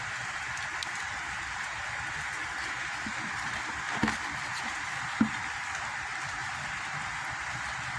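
A steady hiss throughout, with two short knocks about four and five seconds in, the second sharper.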